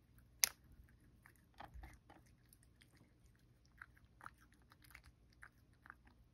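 A cat chewing soft food from a plate: faint, irregular wet chewing clicks, with one sharp click about half a second in.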